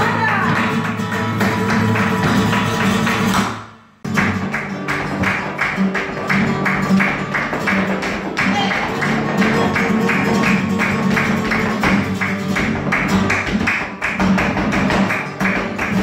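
Flamenco-style Latin music with guitar and a fast steady beat. It fades out about three and a half seconds in, then after a brief gap the music cuts back in abruptly.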